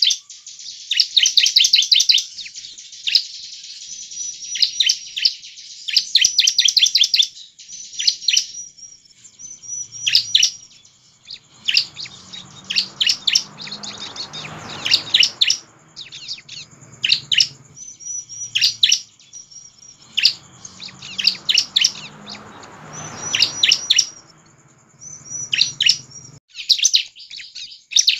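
Bar-winged prinia (ciblek) singing in full voice: fast, high rattling trills alternating with short sharp hooked notes, in bursts of a second or two with brief pauses between.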